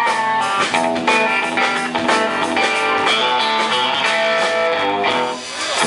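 Live electric guitar and band music, the instrumental intro to a country-rock song.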